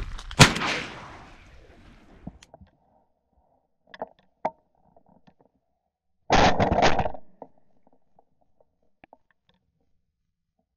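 A single shotgun shot from a 28-gauge shotgun about half a second in, sharp and loud, dying away over a second or so. A couple of faint clicks follow, then a shorter burst of rustling noise at about six and a half seconds.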